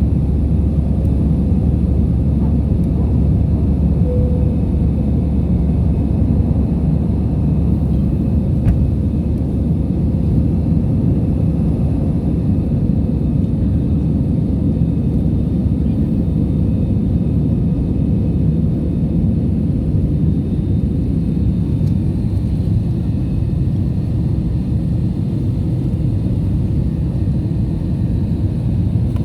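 Steady low rumble of an airliner's engines and airflow heard inside the passenger cabin, even in level throughout.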